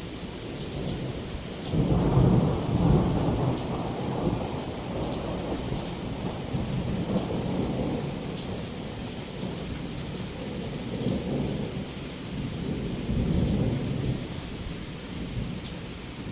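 Heavy rain falling steadily with rolling thunder. A low rumble builds about two seconds in and rolls on, swelling again near the end.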